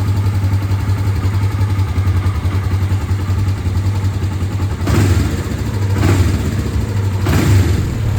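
Kawasaki GPZ 305 motorcycle's parallel-twin engine idling steadily, then blipped with the throttle three times in the second half, about a second apart.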